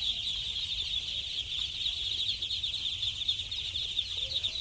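A large flock of 3-day-old ducklings peeping all at once: a dense, continuous chorus of many short, high calls overlapping.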